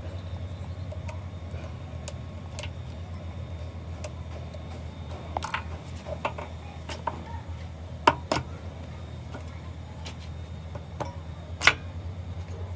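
Scattered sharp metallic clinks and taps, a handful at irregular intervals with two louder knocks in the second half, over a steady low hum.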